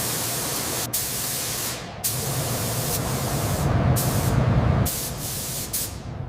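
Pressurized spray hissing in a run of bursts a second or so long, cut off sharply between them, with a low rumble underneath in the middle.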